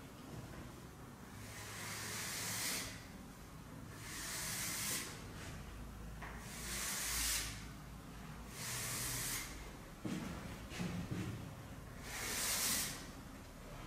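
Chalk scraping on a blackboard as long vertical lines are drawn: about five separate strokes, each lasting roughly a second, a couple of seconds apart.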